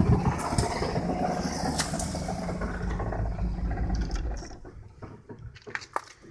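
GMC Safari van's engine running with a steady low hum and some rattle, then cutting out about four seconds in; a few light clicks follow. The van's noise problem is in this running sound, but what it is cannot be told from the material.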